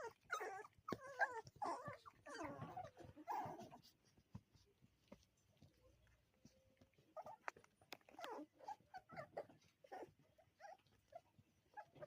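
Miniature poodle puppies whimpering and yipping in short, high calls, several in the first few seconds, then a quiet stretch before more short whines start about seven seconds in.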